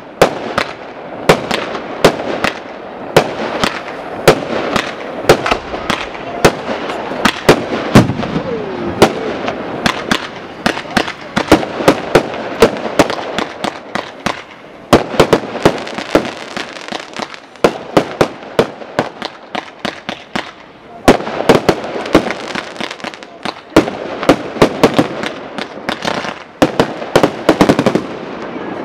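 Fireworks display: aerial shells bursting in a continuous run of sharp bangs, several a second, with short lulls between volleys.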